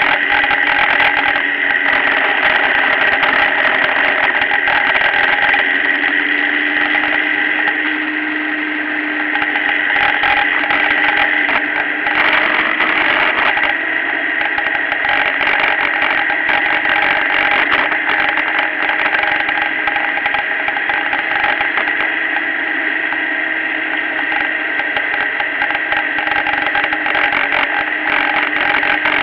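Motorcycle engine running steadily at cruising speed, heard from the bike itself, with wind and road noise over the camera.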